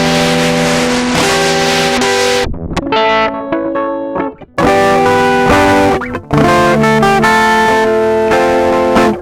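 Electric guitar chords played through Ableton's Roar saturation device. The same short phrase starts over several times with short breaks, and its saturated tone changes between takes.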